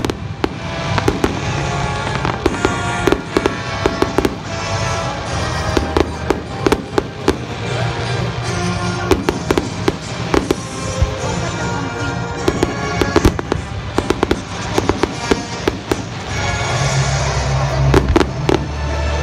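Fireworks display: many sharp bangs and crackles of aerial shells bursting in quick, irregular succession, over loud music with a heavier bass near the end.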